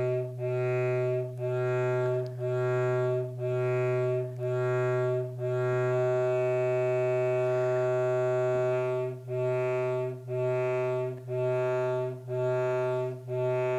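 Small speaker with a stretched balloon membrane, driven by two tones of 125 Hz and 126 Hz at once: a low, buzzy tone rich in overtones that swells and dips about once a second, the beat between the two frequencies. For about three seconds in the middle the pulsing stops and the tone holds steady.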